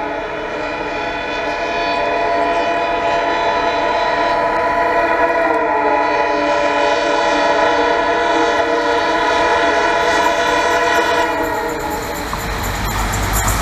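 EMD WDP4 diesel locomotive sounding its air horn in one long, unbroken blast as it approaches, cutting off about 12 seconds in. After that the locomotive's engine rumble and the noise of its wheels on the rails grow loud as it closes in.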